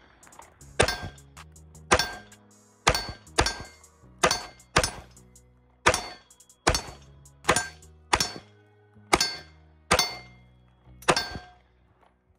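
Glock 19X 9mm pistol fired about thirteen times at a steady, unhurried pace, roughly a shot a second, each shot followed by a brief ring from the steel plate targets being hit. Background music plays underneath.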